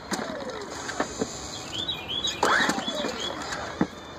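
Recoil starter of a Champion portable generator pulled twice, about two seconds apart. Each time the engine turns over with a quick whir that falls away, and it does not fire: a no-start.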